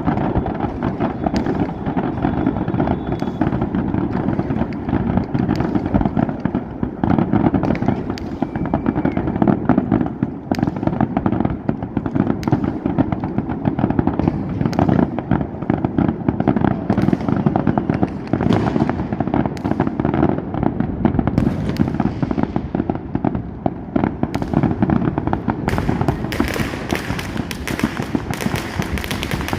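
Many fireworks going off at once: a continuous, dense barrage of bangs and pops over a steady low rumble, turning into a thicker, sharper crackle near the end.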